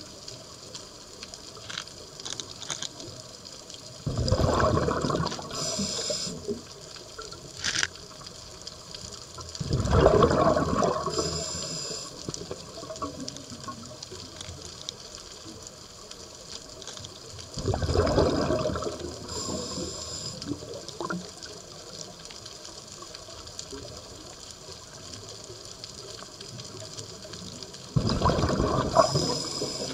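Scuba diver's regulator underwater: four rushing bursts of exhaled bubbles, each lasting about two seconds and spaced six to ten seconds apart, with a short high hiss of the regulator near each one.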